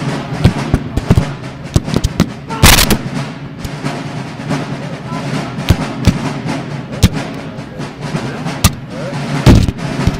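Black-powder rifle-musket fire in a Civil War reenactment battle: scattered shots cracking irregularly across the field. Two much louder, longer blasts stand out, about two and a half seconds in and near the end.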